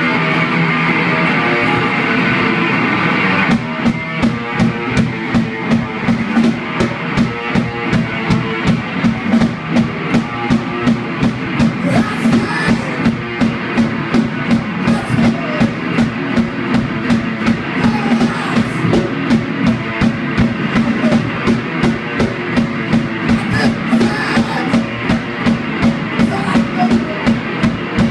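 Live electric guitar playing a riff, joined by a drum kit about three and a half seconds in, which keeps a steady beat of about two hits a second.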